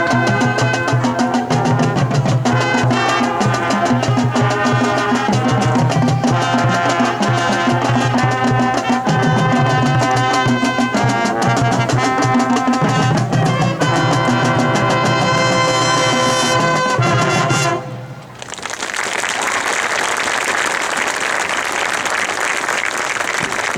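Marching band's brass and drums playing a Latin-style number that ends on a final chord about 18 seconds in, followed by crowd applause.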